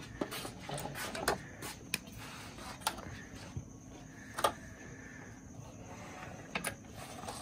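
Juki computerized sewing machine stitching fabric, a quiet steady motor hum with small clicks and taps from the needle and the handling of the cloth.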